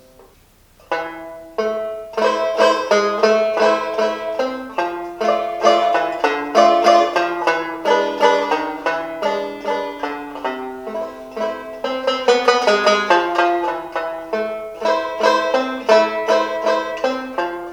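1924 Vega Vegaphone Deluxe tenor banjo played solo: a brisk, continuous run of picked notes and chords. The playing resumes about a second in, after a short lull in which the last note dies away.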